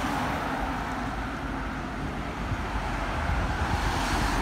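Road traffic noise, a steady hum and rumble, with wind buffeting the phone's microphone.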